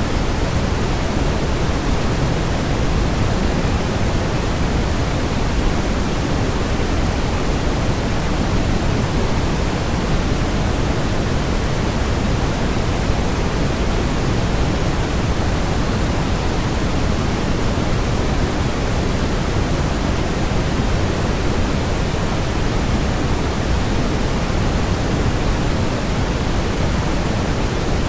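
Steady waterfall white noise: an even, unbroken rush with the most weight in the low end, never changing in level.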